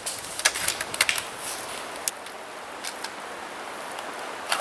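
Airsoft guns firing: a quick, irregular run of sharp snaps and clicks in the first second and a half, a single one about two seconds in and another near the end, over a steady hiss.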